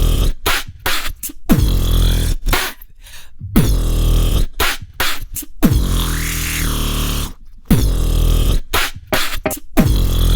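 Dubstep-style electronic music triggered from loops in the Launchpad app for iOS: a chopped, stuttering beat with heavy bass and vocal-like snippets that keeps cutting off into short silences, with a rising and falling sweep about halfway through.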